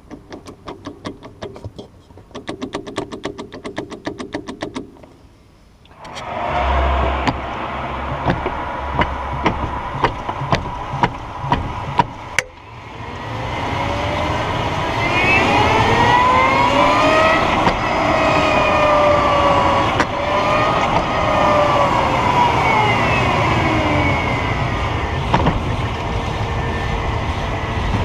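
Tazzari Zero electric car's drivetrain while driving: repeated sharp clunks and knocks from the gearbox and drive shaft, which the owner reports on load changes, over road noise and an electric motor whine that rises and falls with speed from about halfway on. A fast run of ticks comes before the car moves off.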